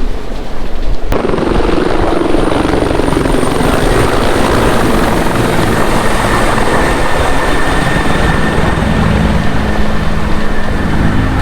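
Helicopter flying close, its rotor and engine noise coming in abruptly about a second in and then holding steady, with a faint high whine above it.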